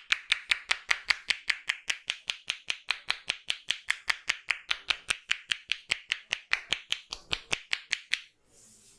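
Massage tapping: a barber's hands slapping rapidly and evenly on a client's head, about six sharp pats a second, stopping about eight seconds in.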